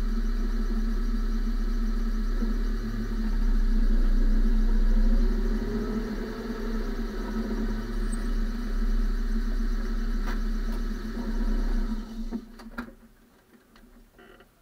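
Car driving, heard from inside the front wheel well: steady tyre and road rumble with a low hum. It fades away as the car slows to a stop near the end, with two short clicks late on.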